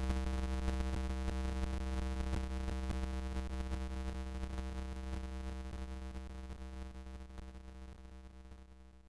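Steady electronic synthesizer drone of many held tones, strongest in the bass, over a high hiss. It slowly fades out through the second half.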